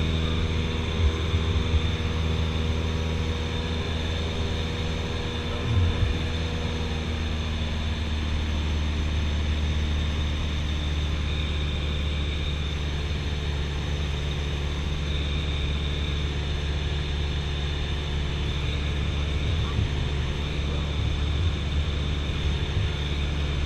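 Cessna 172SP Skyhawk's four-cylinder Lycoming engine and propeller running steadily in flight, heard as a constant drone inside the cabin.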